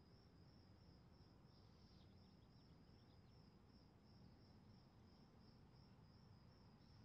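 Near silence with a faint insect chirping steadily, a high, evenly pulsed trill at a few pulses a second.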